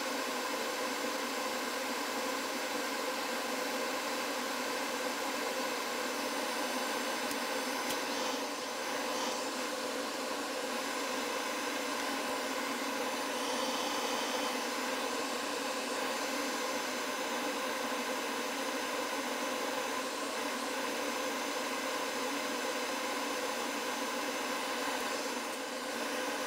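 A blower running: a steady rushing hiss of air with a few faint steady tones in it.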